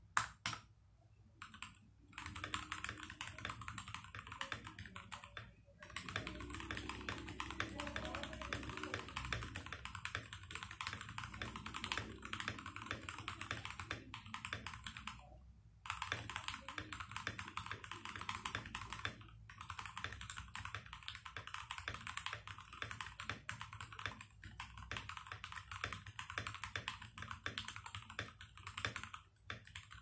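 Typing on a GK68X mechanical keyboard with lubed Gateron KS-3 Yellow linear switches on an aluminium plate in its stock case: a fast, steady stream of key strokes starting about two seconds in, with a few brief pauses.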